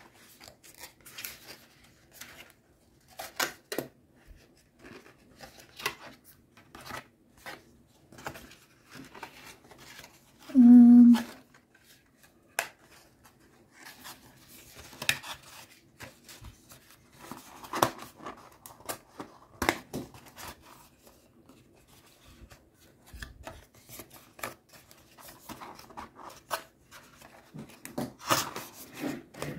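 Toy shelf pieces being broken out and fitted together by hand: scattered clicks, taps and rustles throughout. One short, loud steady tone sounds about eleven seconds in.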